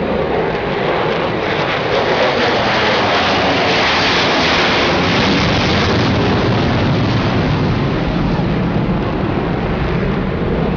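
B-1B Lancer bomber's four turbofan jet engines in a low flyover: a loud, steady rushing jet noise that is brightest about four to five seconds in, then deepens into a low rumble as the aircraft moves away.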